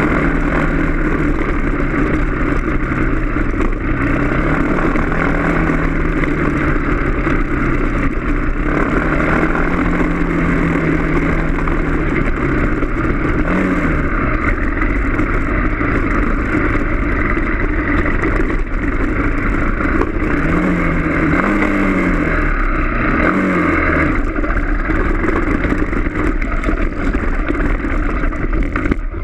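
Dirt bike engine running on a rough dirt trail, its revs rising and falling again and again with the throttle, with several quick rev swoops in the second half.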